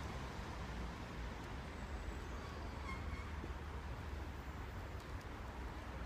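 Faint steady low rumble of background noise, with a couple of light clicks about five seconds in.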